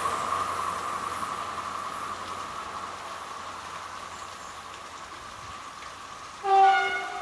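A freight train hauled by an SNCF BB 26000 electric locomotive receding down the line, its rolling noise and a steady high whine fading away. About six and a half seconds in, a short loud horn blast of about half a second.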